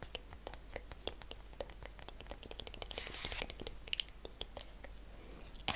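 Soft, irregular clicks and taps very close to a microphone, with a brief hissing swish about three seconds in.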